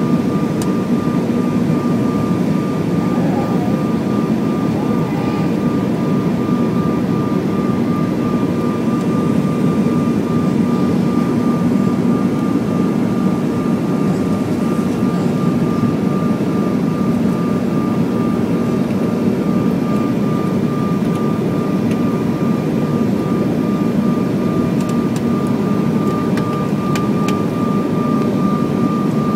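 Steady cabin noise inside a Bombardier CRJ1000 regional jet descending with its flaps extended: a broad rumble of airflow and the rear-mounted General Electric CF34 turbofans, with a steady thin whine above it.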